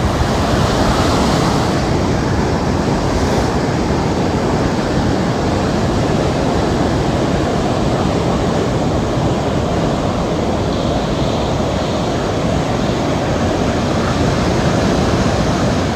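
Caribbean surf breaking on the shore: a steady, loud rush of waves with a heavy low rumble.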